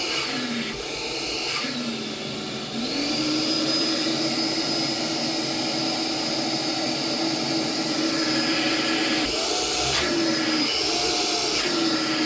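Philips FC6823 cordless stick vacuum's motor running with a steady whine. Its pitch dips and recovers several times at first, holds steady from about three seconds in, and wavers again near the end.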